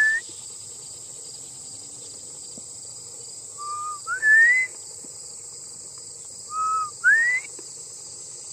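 Sheepdog handler's whistle giving two two-note commands to a herding dog, each a short level note followed by a note sliding upward, with the end of a rising note right at the start. A steady high insect drone runs underneath.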